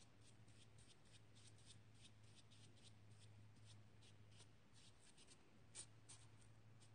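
Faint scratchy strokes of a brush working paint on watercolor card, several a second, over a low steady hum.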